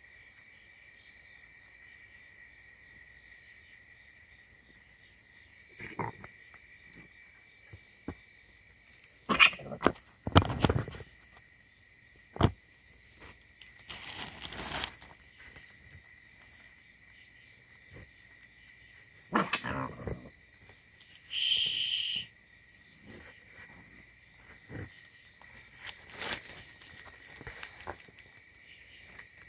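Crickets and other night insects trilling steadily, broken by several short, sudden sounds from the raccoons feeding close by. The loudest of these comes about ten seconds in, and a brief high-pitched cry comes near twenty-two seconds.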